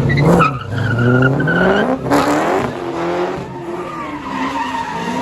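A car spinning donuts: its engine revving up and down over and over, with tires squealing and skidding on the pavement.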